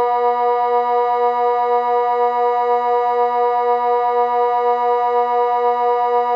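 Multi-horn civil-defence siren, reported to be a Kockum Sonics Delta-4 type, sounding the Swiss water alarm: one low tone held at a steady pitch, neither rising nor falling.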